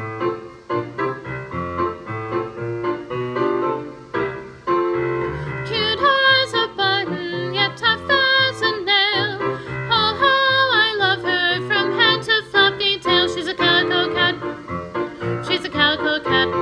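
Piano accompaniment playing chords, joined about six seconds in by singing of a melody with wavering, vibrato-like pitch over the piano.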